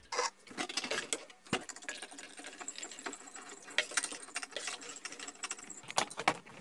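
A spoon stirring batter in a stainless steel bowl: quick, irregular clicking and scraping of metal on metal, with a few louder clinks.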